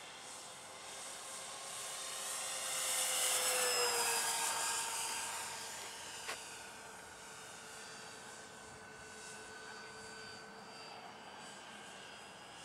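Radio-controlled model B-26 flying past, the whine of its motors and propellers swelling to its loudest about three to four seconds in and dropping slightly in pitch as it goes by, then settling to a steady distant drone. A single sharp click about six seconds in.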